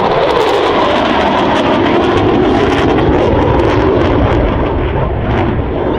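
Military aircraft flying past low and loud, its engine pitch dropping sharply as it goes by. A steady, crackling engine noise follows.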